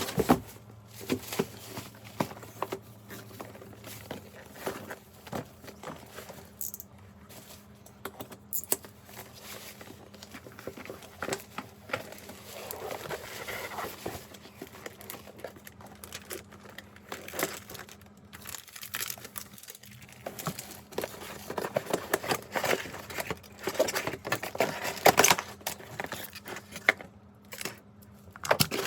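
Laptop packaging being handled: plastic wrapping crinkling and rustling, with irregular taps and clicks, busier near the end.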